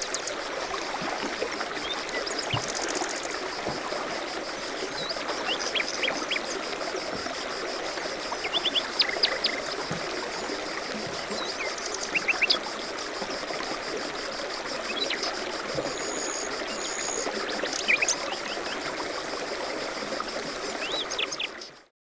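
Outdoor ambience of a stream running steadily, with scattered short bird chirps and a steady high-pitched trill over it; it cuts off abruptly just before the end.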